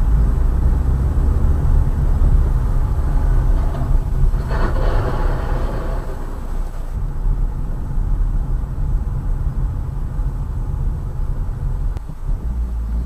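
Steady low rumble of a car driving on the road, engine and tyre noise picked up by a dashcam inside the cabin. A short higher-pitched sound comes in about four seconds in and fades a second or so later.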